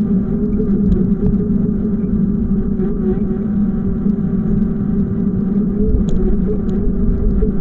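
A vehicle on the move: a steady engine or motor hum over a low rumble.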